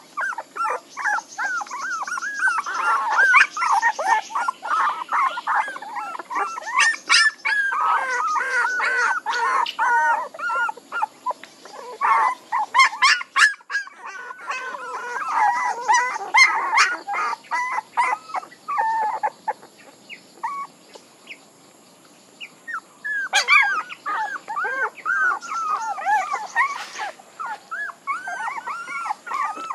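A litter of young puppies whining and whimpering: many short, high-pitched cries overlapping one another, dropping away for a few seconds about two-thirds through, then starting up again.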